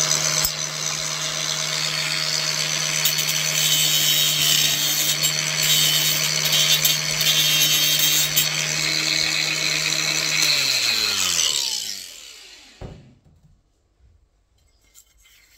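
Handheld angle grinder cutting a wall tile: a steady motor whine under a grinding hiss. About ten and a half seconds in it is switched off and winds down over a couple of seconds, falling in pitch.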